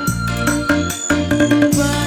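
Instrumental passage of a pop song, with no singing: a steady beat of drum hits over repeated bass notes and held melodic notes.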